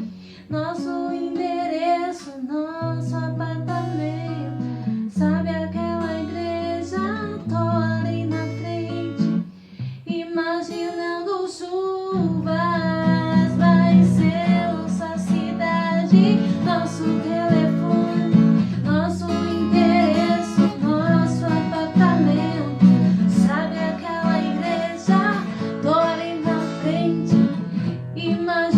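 A woman singing a cover song over acoustic guitar accompaniment. The music thins out briefly about ten seconds in, then returns fuller and a little louder from about twelve seconds on.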